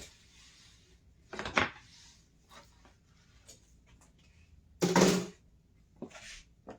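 Kitchen handling noises: a click, then a few short knocks and scrapes of things being moved about on the counter, the loudest about five seconds in.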